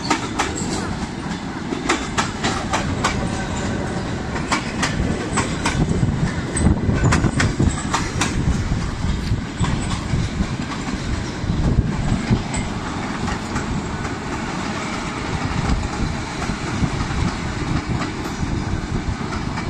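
A train running past with a steady rumble. Its wheels clack over the rail joints, most often in the first half.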